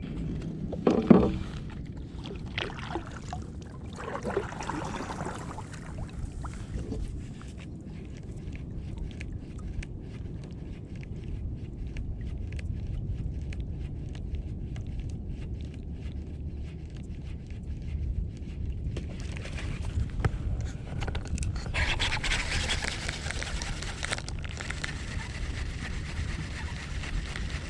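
Scraping and knocking on a fishing kayak over a steady low rumble, with the loudest knock about a second in, and a wider hissing noise over the last several seconds.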